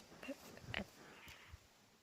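Near silence: room tone, with two faint short sounds, one about a quarter of a second in and one near the middle.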